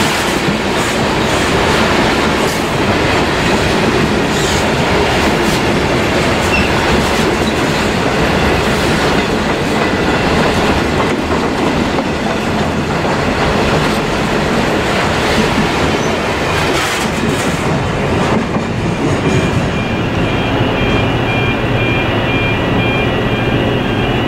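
Loaded grain hopper wagons of a freight train rolling past at speed, wheels clacking and rattling over the rail joints. After the last wagon passes, about two-thirds of the way through, the clatter thins to a steady low hum with a faint high pulsing tone.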